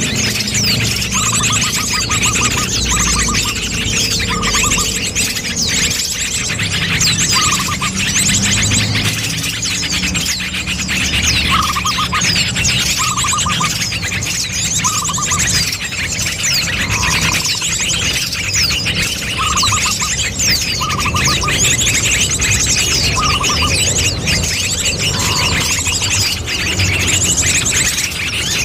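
Bird-luring call of many small birds chirping and trilling densely, with high, rapid trills over and over and a lower short trill repeating every second or two.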